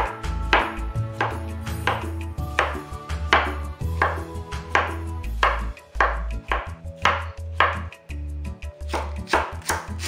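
Chef's knife chopping zucchini into chunks on a wooden cutting board: a sharp knock of the blade on the board about twice a second, the cuts coming quicker near the end, over background music.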